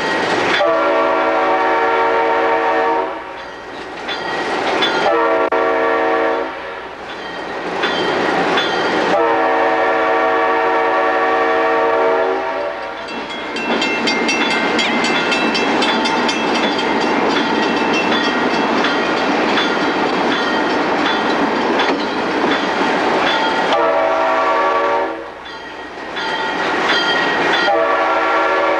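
Alco C425 diesel locomotive's air horn, heard from inside the cab, blowing long and short blasts for street grade crossings. Between the third and fourth blasts there is a long, loud stretch of the locomotive's running rumble and rattle.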